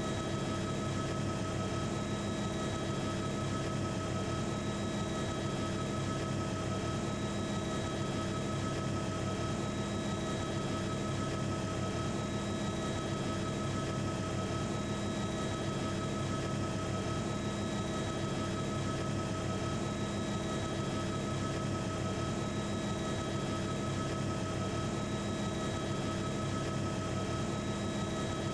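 Cabin noise of a Eurocopter AS350 helicopter in flight: its Turbomeca Arriel turbine and rotor give a steady rush with several steady whining tones, unchanging throughout.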